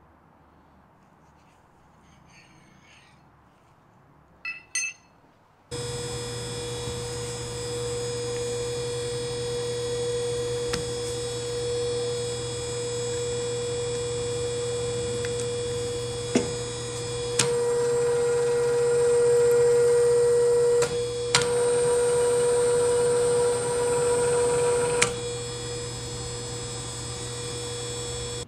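A drill press running steadily with a steady tone as a twist drill, lubricated with cutting oil, cuts into the steel hub of a chuck wrench. The sound starts suddenly about six seconds in, after a couple of light metal clinks, and swells louder for a few seconds in the second half, with a few sharp clicks.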